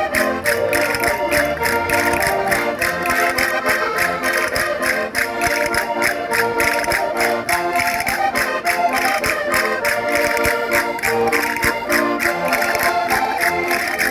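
Concertinas playing a lively traditional dance tune in sustained chords, over a steady clicking beat.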